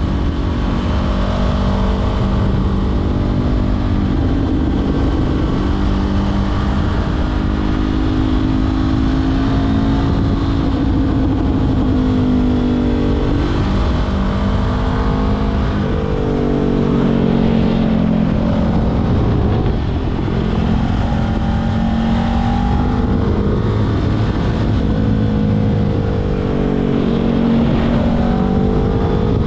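Honda CBR500R's parallel-twin engine through a LeoVince LV-10 aftermarket exhaust, under way, its pitch rising and falling repeatedly as it accelerates and shifts gears. A steady rushing noise runs underneath.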